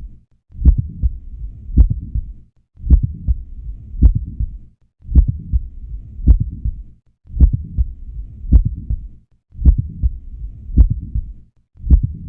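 Stethoscope recording of heart sounds at the cardiac apex with a mid-systolic click: sharp low beats with a faint low hiss between them, typical of mitral valve prolapse. The same short recording repeats about every two seconds, with a brief silence between repeats.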